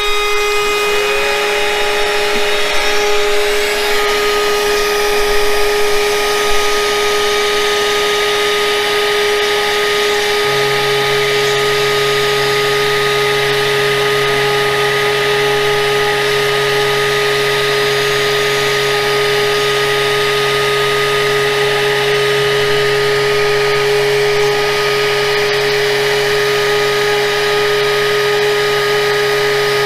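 Yeti Smartbench CNC router's spindle running steadily at 24,000 RPM with a high whine while its V-bit carves vinyl-wrapped MDF. A second motor spins up with a rising tone about a second in, and a lower steady hum joins about ten seconds in.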